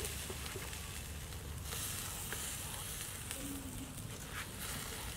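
Open wood fire under a wire grill, hissing steadily with a few faint crackles as a cow's head is singed in the flames.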